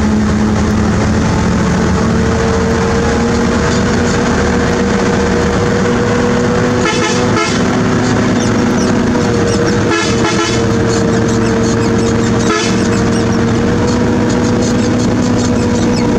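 Heavy diesel engine running at a steady speed with a constant droning whine, broken by a few short sharp clanks around the middle.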